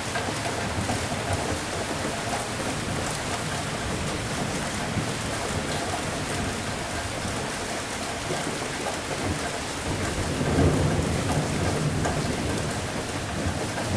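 Steady heavy rain, with a low roll of thunder swelling up about ten seconds in and fading over a couple of seconds.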